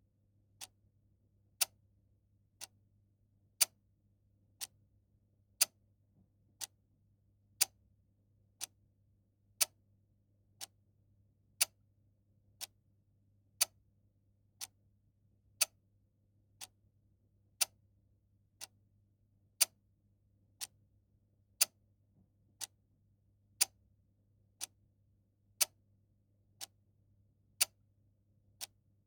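Mechanical clock ticking steadily, about one tick a second, the ticks alternating loud and soft in a tick-tock pattern.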